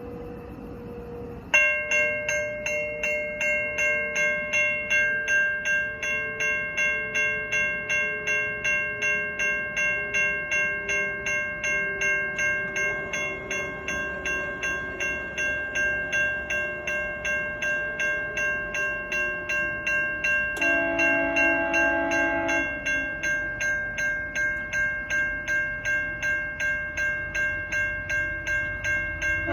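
A railway warning bell rings evenly about twice a second as a GO Transit F59PH locomotive comes up. The locomotive's air horn gives a short chord about 21 seconds in.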